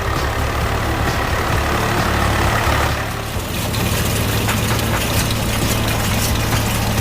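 Swaraj tractor's diesel engine running steadily with a deep, even hum, with light clicking over it from about three seconds in.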